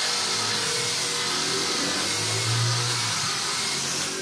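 Electric polisher with a foam pad running steadily against a painted steel tailgate, buffing in a 2-in-1 polishing compound after 3000-grit sanding. A motor whine over a hiss, with a low hum that swells about two seconds in.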